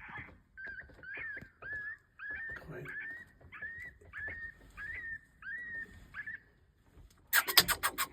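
A string of about a dozen short, high, whimpering yelps, each a quick rising-and-falling whine, about two a second: coyote-like distress cries of the kind used to call coyotes in. Near the end comes a loud burst of rapid clattering clicks.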